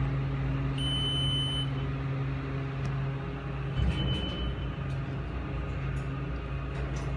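Schindler passenger elevator cab in motion: a steady low hum that shifts about four seconds in, with a short high beep about a second in and a fainter one around four seconds.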